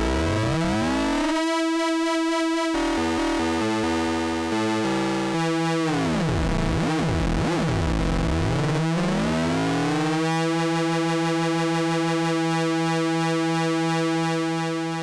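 Moog Mother-32 analog synthesizer holding one note while its LFO is swept in rate at audio rate, modulating pulse width and pitch. Its overtones bend and sweep, with a choppy ratcheting stretch a few seconds in. It then settles into a steady tone that fades out at the end.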